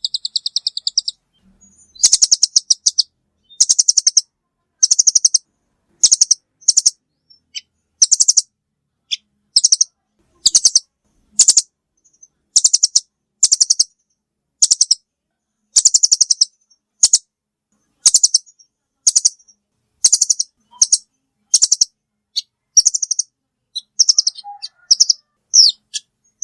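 Velvet-fronted nuthatch (rambatan) calling: short bursts of rapid, high chattering notes, about one burst a second, repeated over and over, as a bird-trapping lure recording.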